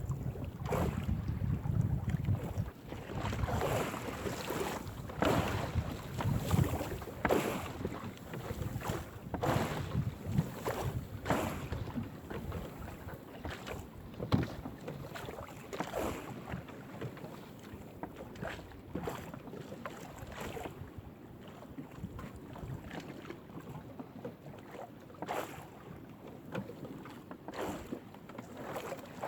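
Wind buffeting the microphone aboard a small fishing boat at sea, with irregular knocks and splashes throughout. It is louder and busier in the first half and calmer in the second.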